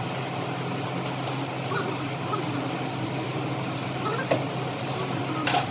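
A steady low electric hum from workshop machinery, with scattered short clicks and taps throughout.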